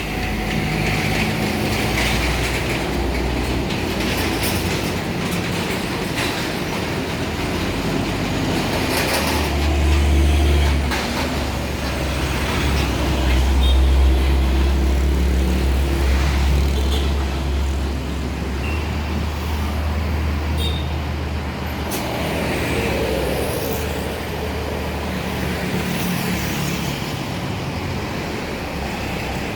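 Large diesel tour bus engine running close by as a bus moves through the lot, a deep rumble that swells about a third of the way in, holds loudest for several seconds, then eases off.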